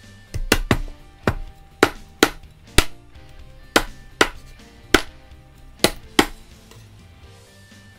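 Large kitchen knife chopping through a poached chicken leg onto a plastic cutting board: about a dozen sharp chops, often in quick pairs, stopping a little after six seconds in. Background music plays underneath.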